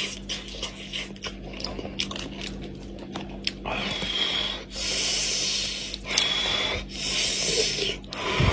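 Cooked goat head being torn apart by hand, with wet, sticky crackles and clicks of meat and cartilage pulling away. From about halfway, several long hissing breaths through the mouth come in turn.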